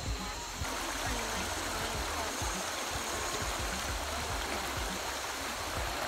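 Shallow stream rushing steadily over a rocky bed, an even water noise.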